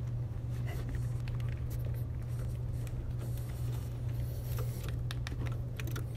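Scattered light metallic clicks and taps of a wrench working the nut off a diesel lift pump's mounting stud, over a steady low hum.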